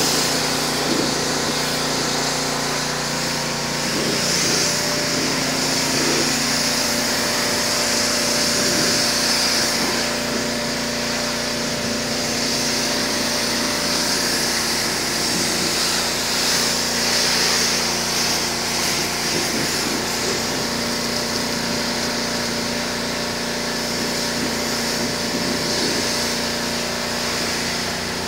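Pressure washer running steadily, its jet hissing as it sprays concrete steps and pavement clear of leaves and sand, over the constant hum of the machine.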